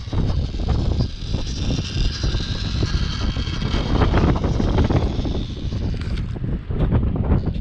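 Wind buffeting the microphone in a heavy low rumble, over the high whine of a 1/16-scale WPL RC crawler's small electric motor and gears as it climbs over rock, with scattered knocks.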